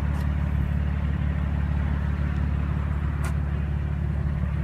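Steady low mechanical drone, like a running engine or machinery, with a faint click about three seconds in.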